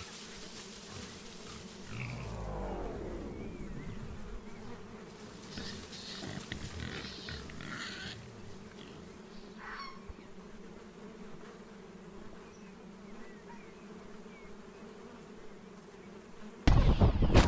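Quadcopter drone's motors and propellers buzzing steadily as it flies low, the pitch sliding down about two seconds in. Near the end a sudden, much louder burst of knocks breaks in.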